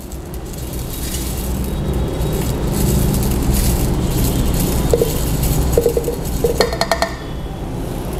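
Salt grains pouring from a glass jar through a plastic funnel into a water-softening pretreatment column, a steady rush of grains, with several light glass clinks against the funnel in the second half. The salt goes in to regenerate the column's ion-exchange material.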